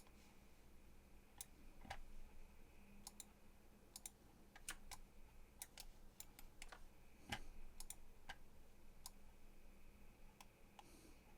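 Faint, irregular clicking of a computer mouse and keyboard, some clicks in quick pairs, over a faint steady hum.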